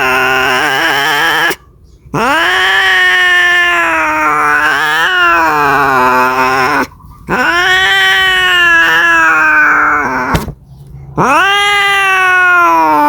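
Domestic cat yowling (caterwauling) in long, drawn-out calls, the sound of a cat calling for a mate. Four yowls follow one another with brief pauses, the first already under way; each swoops up in pitch, wavers, and slides down.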